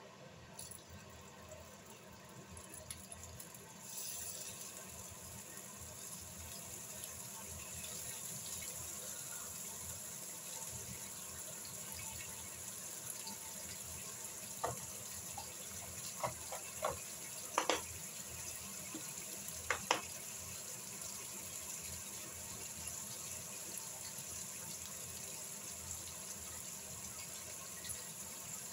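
Bacon strips frying in hot oil in a non-stick pan: a steady sizzle that gets louder about four seconds in, with a few sharp pops and crackles around the middle.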